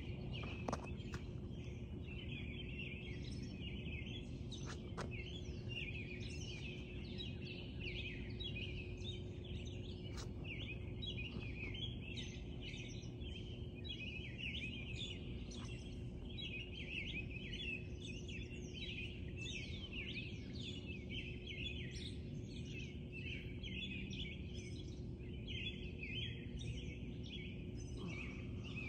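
Many small birds chirping and singing at once in a dense dawn chorus, over a steady low hum.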